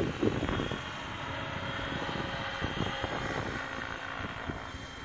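Electric Align T-Rex 700 Pro radio-controlled helicopter in flight, its spinning rotors and 12-cell electric motor giving a steady whir with a high whine, growing slightly fainter near the end as it flies away.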